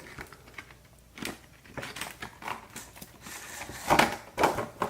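Hands working open a Blu-ray box set's cardboard packaging: scattered light clicks and taps, then two louder rustling scrapes near the end as the contents slide out.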